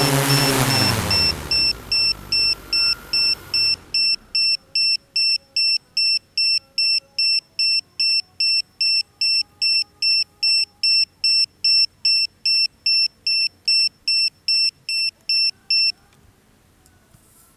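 Multirotor drone's motors and propellers spinning down, their hum and rush falling in pitch and fading over the first few seconds. Then a high electronic beeper on the drone beeps steadily, about two and a half times a second, and stops a little before the end, followed by faint handling clicks.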